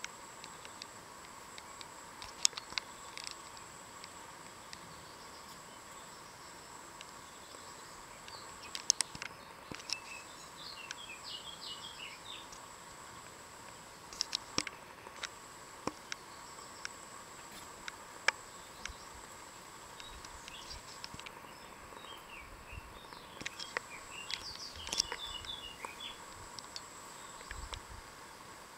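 Outdoor ambience: a steady high insect trill, with two spells of twittering bird calls and scattered sharp light clicks and taps.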